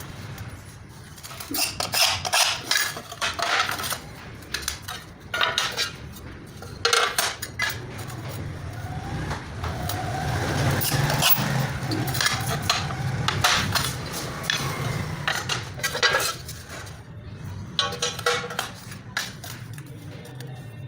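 Steel mason's trowel scraping and clinking in irregular strokes while working cement mortar for tile fixing.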